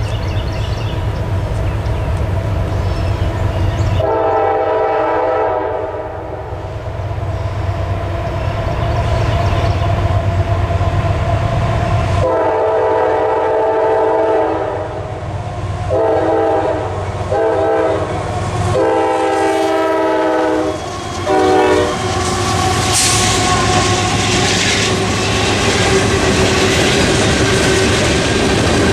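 Air horn of a CSX freight train led by GE AC44CW diesel locomotives, sounding the grade-crossing signal as it approaches: two long blasts, two short ones, a long one and a last short one. Behind it the train rumbles, and from about 22 s in the wheels of the passing freight cars clatter over the rail joints.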